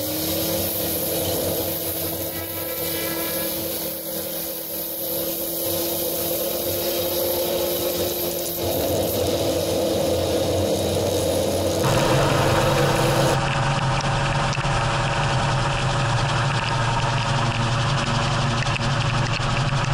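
Gyrocopter engine and propeller running steadily while it taxis, louder from about twelve seconds in as it starts its take-off run.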